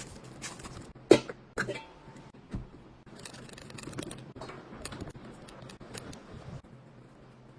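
Food-preparation handling sounds: a sharp knock about a second in, two lighter knocks soon after, then a few seconds of light clicking and scraping that stops near the end.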